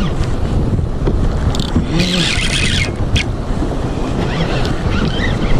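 Wind blowing hard on the microphone over open sea water, with a short hiss about two seconds in.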